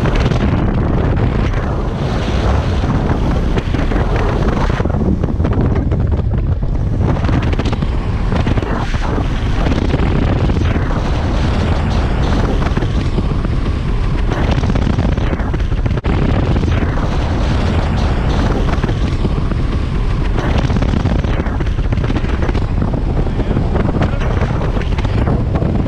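Loud, steady wind buffeting the microphone on a boat running at speed over the water.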